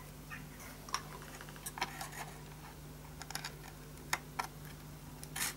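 Scattered light clicks and taps as fingers and fingernails handle small broken wooden rib fragments and a super glue bottle against the ribs of a violin. A brief rustle comes near the end, over a low steady hum.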